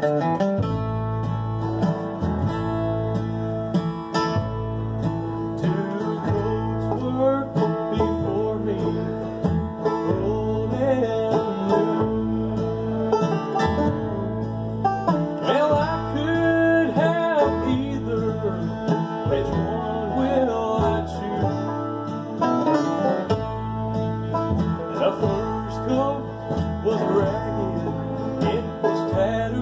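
Acoustic bluegrass band playing a tune together: five-string banjo, fiddle, acoustic guitar and upright bass, the bass keeping a steady beat underneath.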